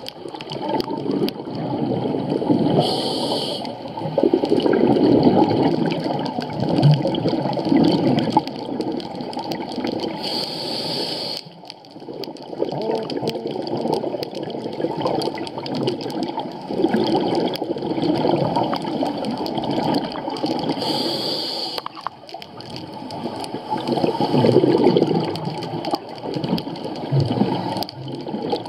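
Scuba diver's exhaled bubbles bubbling and rumbling past an underwater camera housing in repeated surges, with a brief regulator hiss on each inhalation every several seconds and short pauses between breaths.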